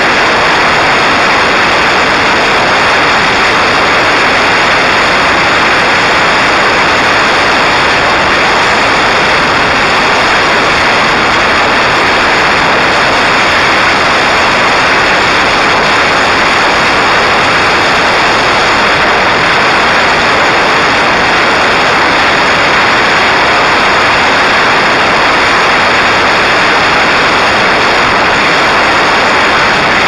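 Loud, steady rush of air over the microphone of a camera riding on a Parrot Disco fixed-wing drone in flight, with a faint steady whine mixed in.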